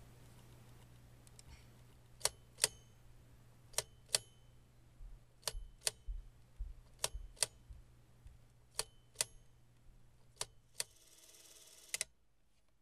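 Paillard Bolex clockwork movie camera shooting single frames in P mode: sharp mechanical clicks in pairs, the two about half a second apart, repeated about every second and a half as the release button is pressed, each pair one frame exposed.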